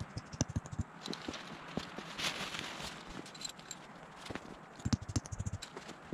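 Crunching in snow with runs of sharp knocks and thuds, from pitching a canvas teepee tent and working its stakes into frozen ground. The knocks come in clusters near the start and again about five seconds in, with a brief rustling crunch a little past two seconds.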